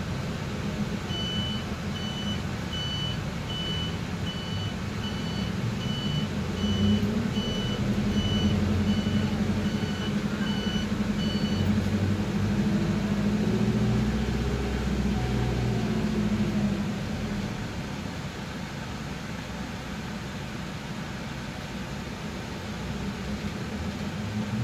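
Mitsubishi Fuso Rosa minibus heard from inside the cabin, its engine running louder through the middle and easing off near the end. For about the first twelve seconds an electronic warning beeper sounds a little more than once a second, then stops.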